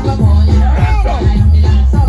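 Live music: a woman singing into a microphone over a bass-heavy backing track played through the stage PA.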